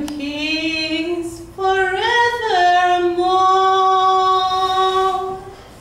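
A woman singing solo with no accompaniment: a note gliding slowly upward, then a higher note that bends and settles into a long held tone, fading near the end.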